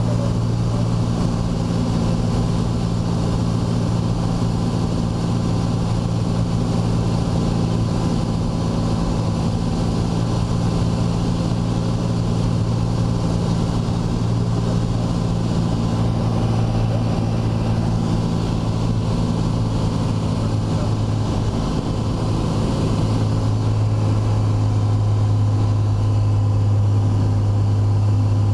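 Single-engine light aircraft's engine and propeller running steadily in flight, heard inside the cabin. About 22 seconds in, the engine note drops slightly and gets a little louder.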